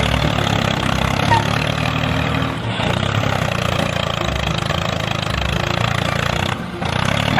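Tractor engine running steadily, with a brief dip near the end.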